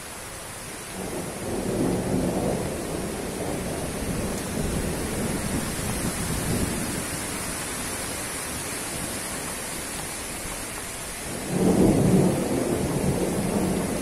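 Strong wind gusting through oil palm fronds, rumbling on the microphone. It swells in a gust about a second in, eases off, then comes in a stronger gust near the end.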